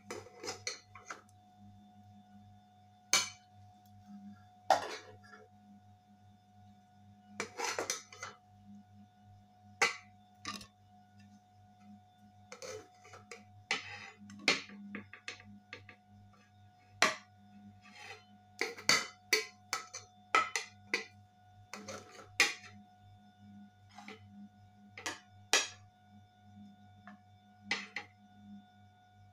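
Metal serving spoon scraping and clinking against a metal cooking pot while cooked rice is dished out, in irregular sharp clinks and scrapes. These come in scattered groups, with the busiest stretch between about 12 and 23 seconds in.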